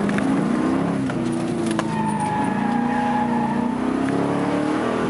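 Pontiac Trans Am engine revving up and down as the car is driven hard around a coned course, heard from inside the cabin, with a thin high whine held for about a second about two seconds in.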